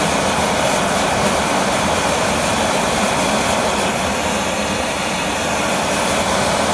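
High-pressure propane cast-iron wok burner burning at full flame, giving a loud, steady rushing noise of gas jetting through the burner head.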